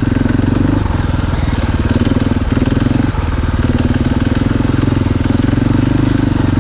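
Dirt bike engine running at steady revs under way, with a few brief changes in revs.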